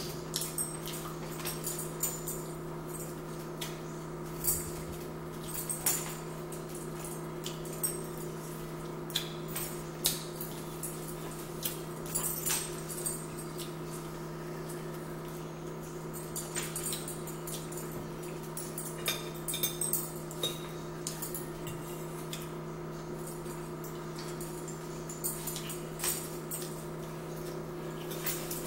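Eating sounds at a table: chewing and mouth sounds with scattered short clicks of forks and fingers on plates, over a steady low electrical hum.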